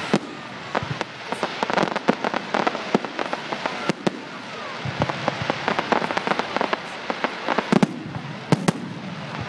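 Fireworks going off: a dense, continuous crackling like rain, with many sharp pops and bangs through it and a few louder reports.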